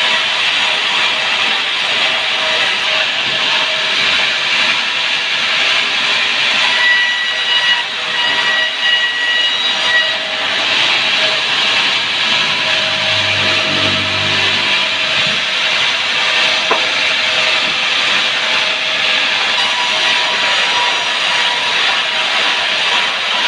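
Sawmill saw cutting through a sengon (albizia) log: a steady, loud hiss of the blade in the wood with a thin whine, and a brief low hum a little past the middle.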